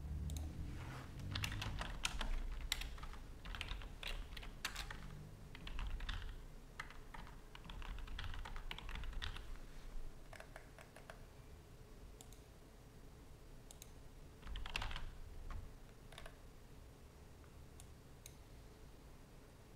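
Typing on a computer keyboard: quick runs of keystrokes for about the first ten seconds, then a short burst of keys in the second half and a few single clicks near the end.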